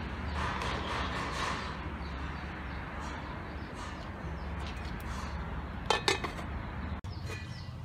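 A pot of soup boiling steadily while a ladle stirs it, then an aluminium lid set down on the aluminium pot with two quick metallic clinks about six seconds in. Short high chirps repeat near the end.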